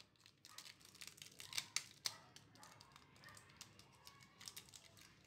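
Faint, scattered crinkles and clicks of aluminium foil being pressed around a kulfi mould and held with a rubber band, the clearest few a little under two seconds in.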